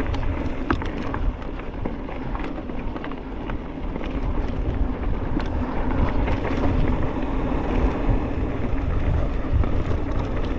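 Mountain bike riding fast along a dirt trail: wind buffeting the microphone over the steady rumble of tyres rolling on dirt, with scattered sharp clicks and rattles from the bike over bumps.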